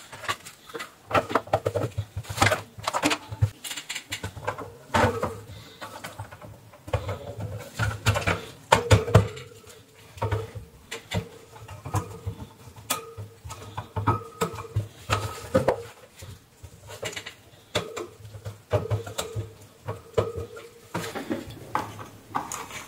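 Plastic housing and wire guard cage of a UV bug zapper being handled and fitted back together: irregular rattles, clicks and knocks of wire against plastic.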